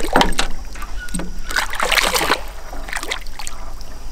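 Hooked peacock bass thrashing at the surface beside the boat, splashing water in three bursts as it is brought alongside to be landed.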